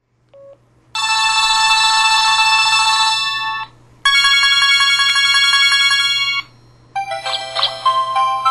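MY5000 mobile phone's ringtones and alert sounds played one after another: a short beep, then a bright electronic chime held for about three seconds, a second chime pulsing about four times a second, and a third electronic melody starting near the end.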